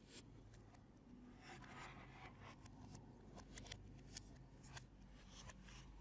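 Faint, irregular clicks and light scraping from small parts and tools being handled during drone repair work, over a low steady hum.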